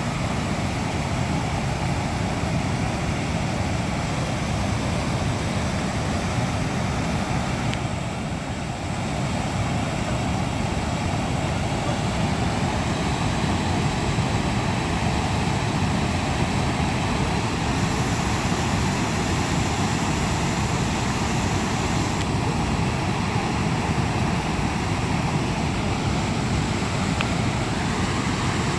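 Steady rushing of river water spilling through a dam, an even, unbroken noise.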